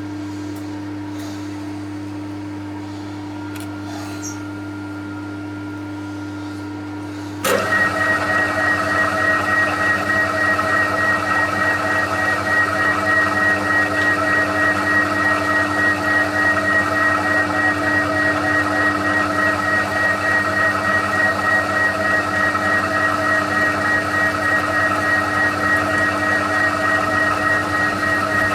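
TOS milling machine running with a steady hum. About seven and a half seconds in, a much louder machining sound with a steady high whine sets in abruptly and carries on with a regular pulse: the flycutter cutting the warped exhaust manifold.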